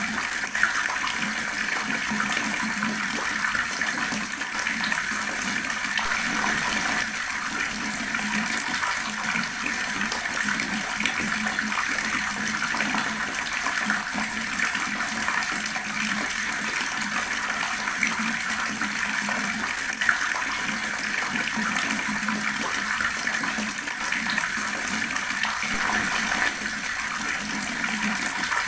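Water tap running steadily, the water gurgling and splashing without pause.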